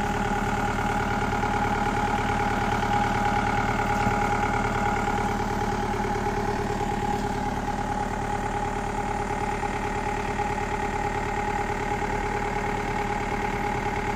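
Mahindra jeep engine idling steadily, holding an even pitch throughout.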